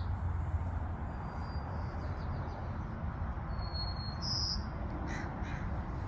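Songbird singing: a short phrase sung twice, a thin high held whistle followed by a brighter, higher note and a few quick falling notes, over a steady low background rumble.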